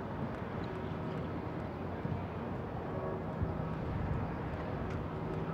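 Steady outdoor background noise: a low, even rumble with a faint hum and a few soft clicks, no distinct event standing out.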